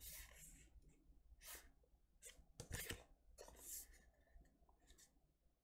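Faint rustling and scraping of a vinyl LP's cardboard jacket and printed paper sleeve being handled, in several short brushes.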